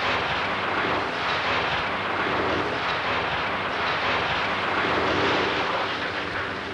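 Loud, continuous roar of a Class 46 diesel locomotive at speed crashing into a steel nuclear fuel flask laid across the track. The roar eases a little near the end.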